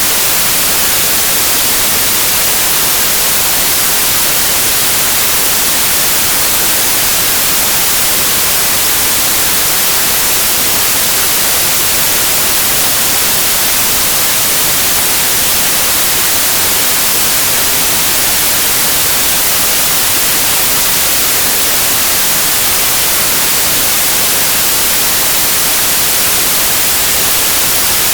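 Steady white noise: an even, unchanging hiss, loud and brightest in the high frequencies, with no other events.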